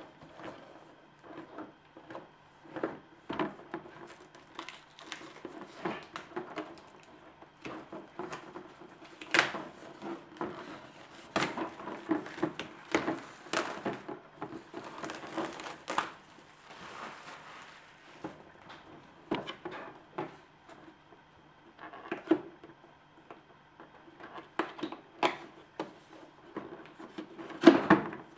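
Plastic shrink-wrap crinkling and tearing as it is pulled off a cardboard box, in irregular crackles and snaps, with the box knocking and sliding on a wooden table.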